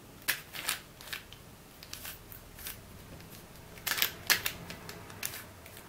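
A QiYi stickerless 4-layer Super Square-1 plastic twisty puzzle being scrambled by hand: irregular plastic clicks and clacks as its layers are turned and snap into place, the loudest cluster about four seconds in.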